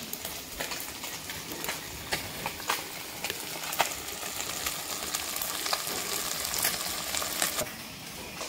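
Small fish sizzling as they shallow-fry in hot mustard oil, a steady hiss broken by frequent sharp crackles and spits. The sizzle eases off a little near the end.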